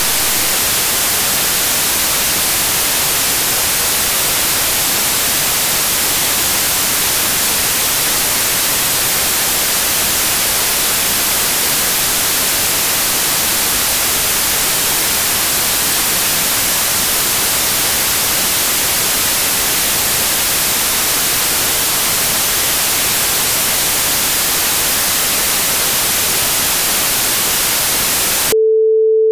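Loud, steady white-noise hiss like TV static, with no other sound in it. Near the end it cuts off sharply and a single steady pure tone begins.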